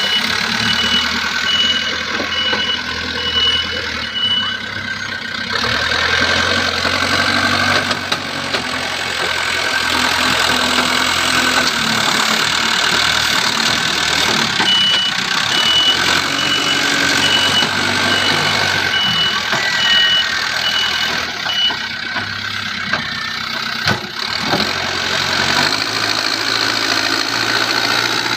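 Diesel engine of earthmoving machinery running steadily while digging and loading. An electronic beep repeats about twice a second over the first few seconds and again through the middle.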